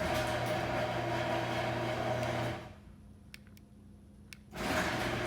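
Sears Craftsman garage door opener motor running with a steady hum, driving the door normally. It stops after about two and a half seconds, a couple of faint clicks follow, and it starts up again near the end.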